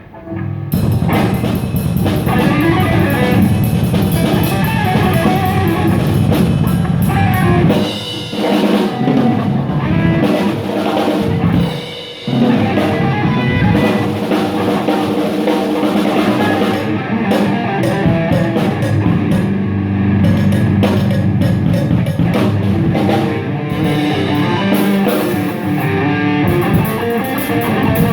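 A rock band playing through the PA during a sound check: drum kit and guitar, with brief drops in the playing about 8 and 12 seconds in.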